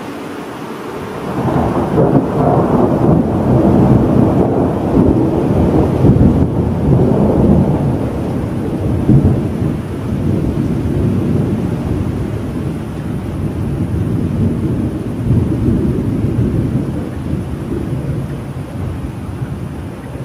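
A long rolling rumble of thunder that swells about a second and a half in, stays strong for several seconds, then slowly rolls away, over a steady hiss of rain.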